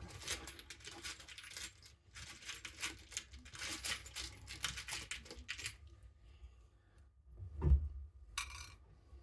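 Small metal screws and washers clinking and rattling as a hand rummages through a pot of them, a dense run of clicks for about six seconds. Near the end comes a dull thump, followed by a short rattle.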